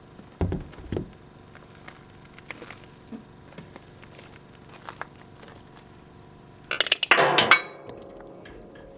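Hard metal parts knocking and clattering: two sharp knocks near the start, light clicks, then a loud rattling clatter about seven seconds in that leaves a brief ring.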